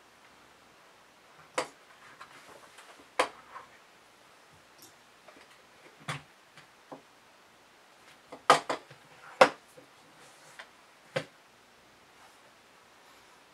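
Hard objects being handled and set down: a brass pen, its small brass parts and their box knocking and clicking on a stone stand and tabletop. About eight separate sharp knocks, the loudest a quick double knock and a single one a little past the middle.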